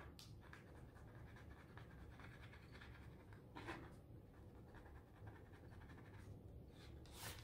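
Faint scratching of a toothpick through black acrylic paint into crayon on paper, over a low steady room hum, with two brief louder sounds about halfway and near the end.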